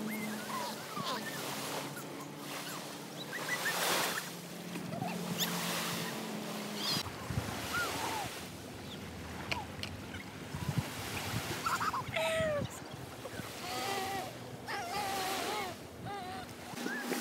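Small waves washing and lapping at the water's edge of a pebble beach, the wash swelling and ebbing with a louder surge about four seconds in. A low wind rumble on the microphone sets in about halfway through.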